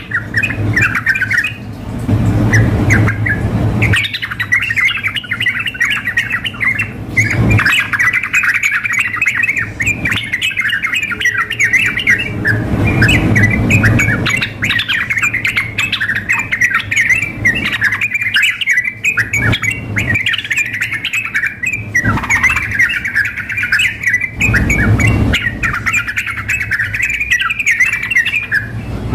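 Yellow-vented bulbuls (trucukan) singing and calling without pause, a female's calls mixed with a male's lively chattering song in dense bubbly phrases. A steady low hum runs underneath.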